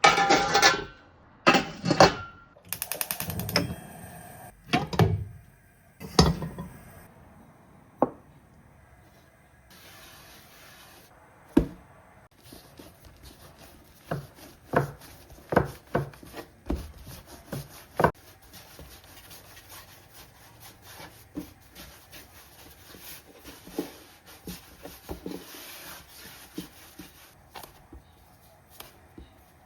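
Kitchen utensils and dishware knocking and clattering during food preparation. Loud, closely spaced knocks and scrapes fill the first several seconds, then give way to lighter, scattered taps.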